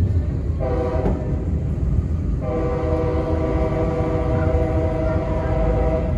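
Locomotive horn sounding for a road grade crossing: a short blast about half a second in, then a long blast starting about two and a half seconds in, over the steady rumble of the moving train.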